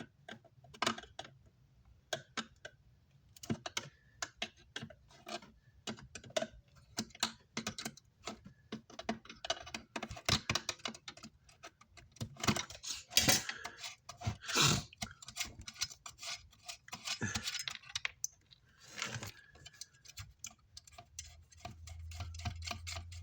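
Irregular clicks, taps and small metallic rattles of hand tools and screws as a car amplifier's case is taken apart. A low steady hum comes in near the end.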